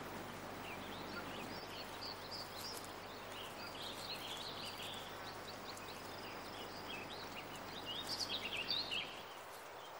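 Faint outdoor forest ambience: a steady hiss of background noise with small birds chirping and twittering throughout, busiest about a second in and again near the end.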